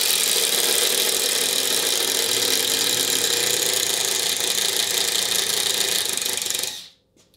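Two cordless impact drivers, a Kimo 20V brushless and a Ridgid, running flat out at their top speed setting and hammering screws into a wooden board. The dense rattling holds steady, then cuts off sharply near the end as both stop.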